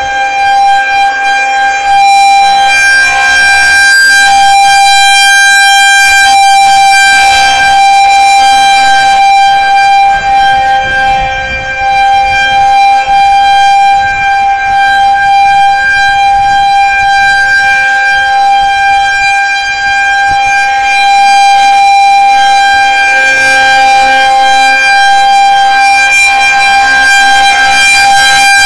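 Federal Signal 2001-130 outdoor warning siren sounding a loud, steady alert tone at one unwavering pitch with strong overtones, sounded for a tornado warning.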